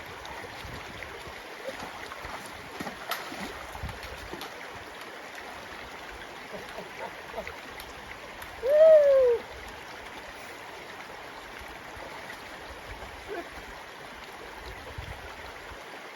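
Creek water rushing steadily over rocks, with a few faint clicks. About halfway through, one short call that rises and then falls in pitch cuts in loudly over the water.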